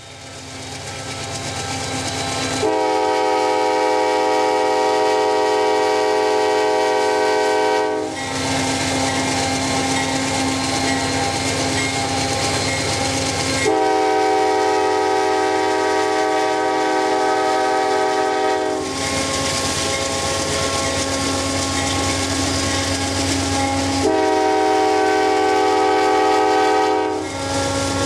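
CSX GE AC4400CW locomotive sounding its multi-note air horn in three long blasts of about five seconds each, evenly spaced. Between the blasts the locomotive and train run steadily along the track.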